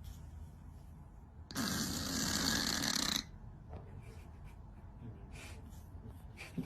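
Snoring: one long, loud snore about a second and a half in, lasting under two seconds, followed by quiet with faint small ticks.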